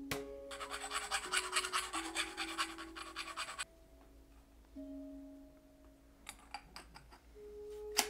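Rapid run of clicking for about three seconds, then a handful of separate clicks near the end, over background music.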